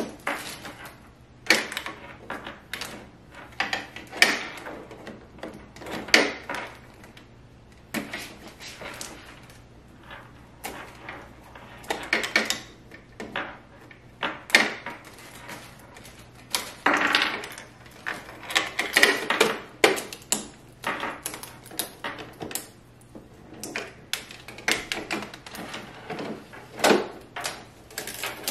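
Irregular plastic clicks, knocks and scrapes from the Canon Pixma iX6820 printer's front panel and paper tray being opened and pulled out by hand.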